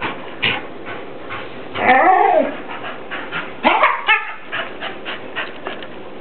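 Shepherd-mix dog giving two drawn-out, whining vocalizations in excitement at the prospect of a walk. The first, about two seconds in, rises and then falls in pitch, and the second comes about four seconds in, with short sharp sounds scattered around them.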